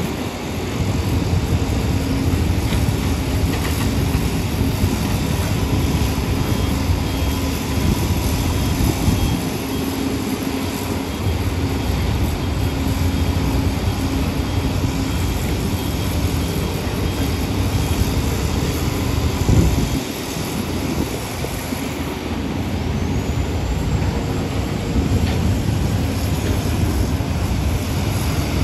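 Diesel engines of heavy construction machinery running steadily under work: hydraulic excavators with dump trucks, a continuous low drone. One brief thump about twenty seconds in.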